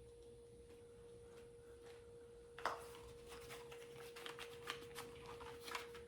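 Faint steady hum tone throughout. About two and a half seconds in, a click, then light irregular clicking and crackling as small doorbell-kit parts and their plastic packaging are handled.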